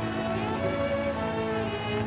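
Background film music: slow, sustained chords held over several notes at once, shifting chord about half a second in and again near the end.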